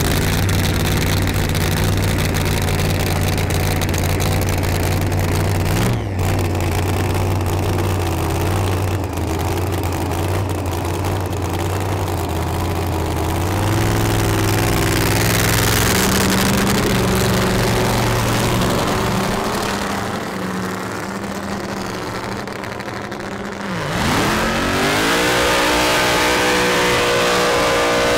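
Supercharged methanol-burning 511 ci Hemi V8 in a 1970 Chevelle doorslammer, running with a steady low note at first. About 24 s in, the revs climb steeply and hold high as the car pulls away, tyres smoking.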